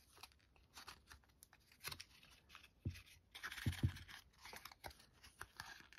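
Faint scratching, rustling and light clicks of trading cards and a paper card sleeve being handled, as a mini acetate card is worked out of its paper frame. A few soft thumps come about halfway through.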